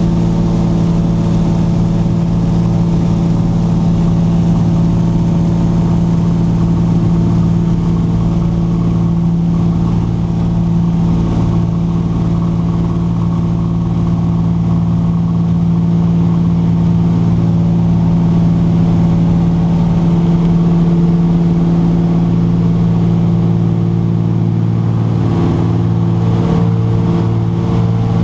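De Havilland DHC-2 Beaver's Pratt & Whitney R-985 radial engine and propeller running steadily. The engine note shifts slightly near the end.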